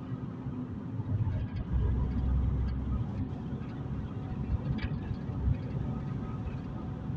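Interior sound of a car travelling on the road: a steady low rumble of engine and tyres heard inside the cabin, swelling louder for about a second and a half around two seconds in.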